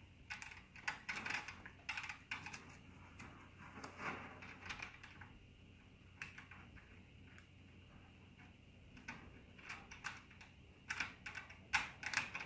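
Irregular small clicks and light rattles of a snare drum's plastic snare strap and metal strainer parts being handled as the strap is threaded through the strainer, the clicks thickest near the end.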